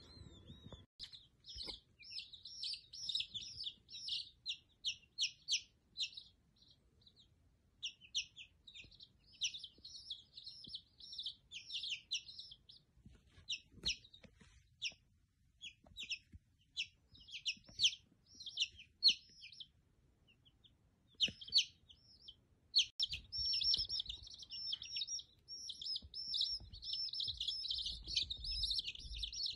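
Baby chickens peeping: rapid, high-pitched cheeps in runs with short gaps, becoming denser and nearly continuous near the end.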